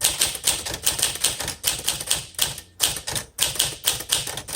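A 1952 Smith Corona Silent manual portable typewriter being typed on: a quick, even run of typebar strikes, about four or five a second.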